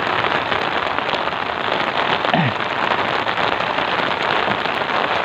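Heavy rain falling onto the sea surface, a steady, dense hiss.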